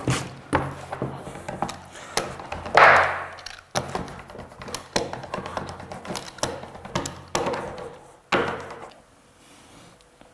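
Cut plywood woodblock pieces being handled and set down on a worktable: irregular wooden knocks and taps with short scraping slides. The loudest comes about three seconds in, and it grows quieter near the end.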